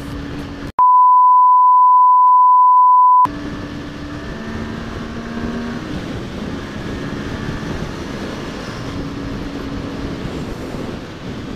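A loud, steady, single-pitch bleep about a second in, lasting some two and a half seconds, edited in over the audio. Before and after it, a motorcycle being ridden: steady engine hum under wind and road noise.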